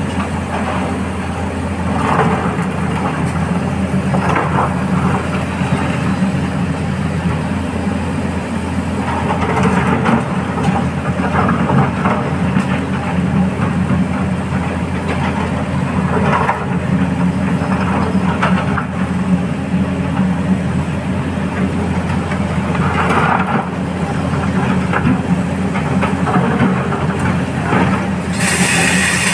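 Heavy diesel engines running steadily, from loaded tipper trucks pulling away along a haul road, the engine note swelling every few seconds. A hiss starts near the end.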